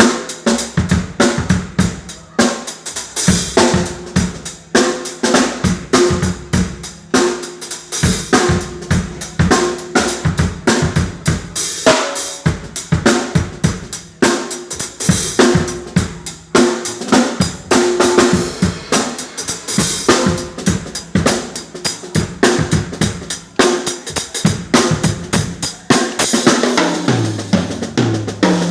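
Drum kit played continuously in a steady, dense rhythm of hits, as a test of how the kit sounds.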